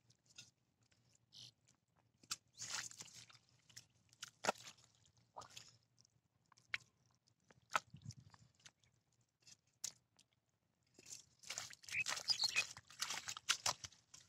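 A hand digging and squelching through soft wet mud: scattered wet splats and clicks with short quiet gaps, turning into a denser, louder run of squelching near the end.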